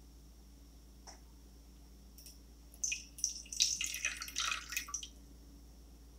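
Water poured from a small glass flask into a shallow tray, splashing and trickling in short spurts for about two seconds, starting near three seconds in. A small click comes about a second in.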